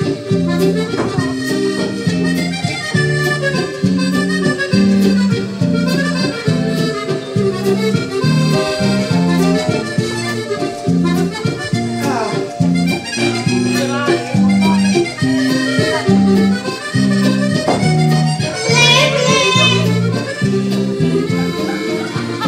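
Lively instrumental music with a steady bouncing beat of repeated low chords and a melody above. About halfway through, a high note slides downward, and near the end there is a quick run up and down.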